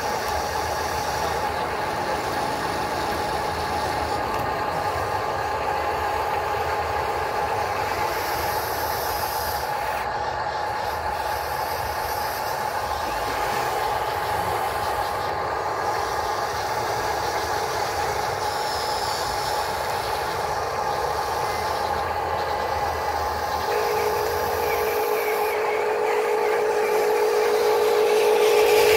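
Electric motors of a Huina RC excavator whining steadily as it swings and lowers its boom. A second, lower whine joins about four-fifths of the way in, and the sound grows louder near the end.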